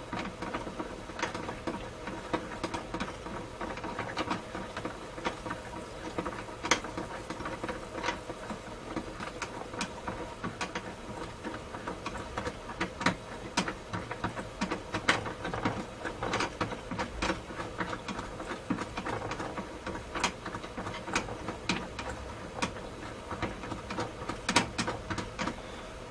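Butane-fired model steam boiler heating up, with irregular ticks and crackles over a steady hum, while pressure has yet to build.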